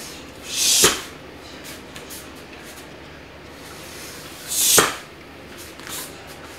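Karate uniform sleeves swishing and snapping as two blocks are thrown about four seconds apart, each a quick rising whoosh that ends in a sharp crack.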